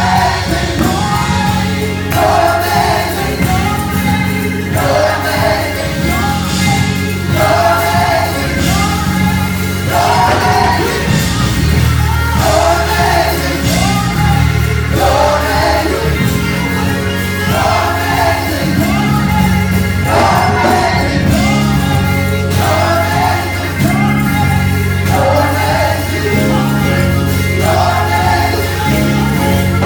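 Live gospel choir singing with band accompaniment, repeating a short sung phrase about every two and a half seconds over a steady bass line.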